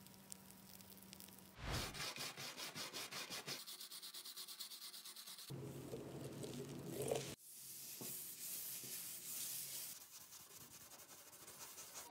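A solvent-soaked cloth rubbing over a mini car's metal body. It comes in several stretches: quick regular strokes for a few seconds, then a steadier hiss of wiping.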